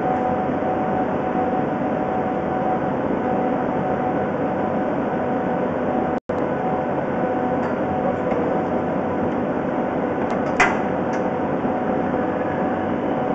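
A steady mechanical drone with a couple of steady pitched tones running through it. It cuts out for an instant about six seconds in, and a short sharp tick comes near the end.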